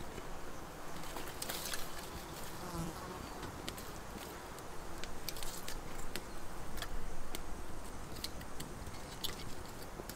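Small wood fire catching in a stone fire pit, with scattered sharp crackles and pops. An insect buzzes close by.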